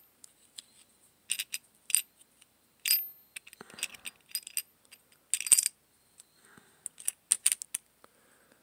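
Small plastic and metal parts of an RC car's spring-loaded servo saver clicking, clinking and scraping as they are worked loose by hand. The clicks come irregularly, the sharpest about five and a half seconds in.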